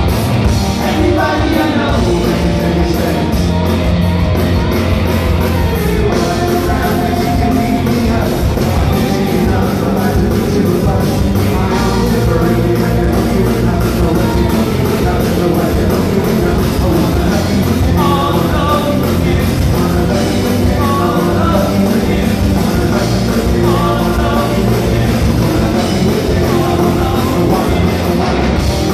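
A rock band playing live: electric guitars and bass with a man singing lead, heard from the audience in a hall.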